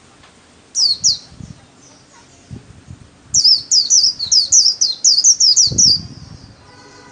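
White-eye (vành khuyên) singing in the rapid 'líu' style: two high, falling whistled notes about a second in, then a fast run of about a dozen high, sharply falling notes lasting nearly three seconds. Soft low knocks sound underneath.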